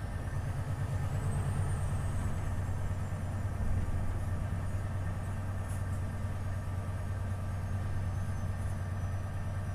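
Volvo FH 500 truck's diesel engine running steadily with a low hum, a faint high whine rising and falling over it.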